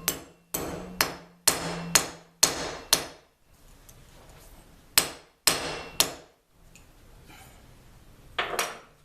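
Hammer blows, sharp ringing strikes about two a second. There is a run of six, then a pause, three more, and a single last strike near the end.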